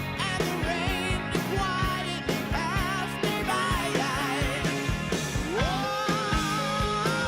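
Background music: a song with a singing voice over drums and a steady beat.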